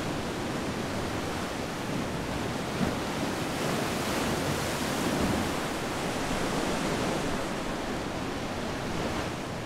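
Sea surf washing with wind: a steady rushing noise that swells a little now and then.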